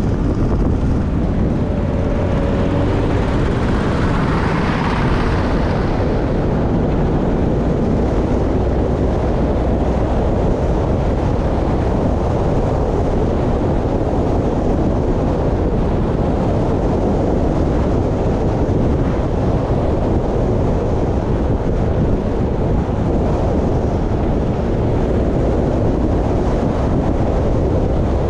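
Steady wind rush on the microphone and road noise of a vehicle riding along at speed. About five seconds in a brief swell rises and fades as the farm tractor-cart ahead is overtaken.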